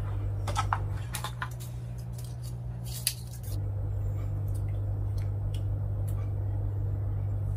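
A GoPro Hero 10 camera being lifted out of its plastic packaging tray and handled, with several light plastic clicks and rustles in the first three seconds and only faint ticks after that. A steady low hum runs underneath.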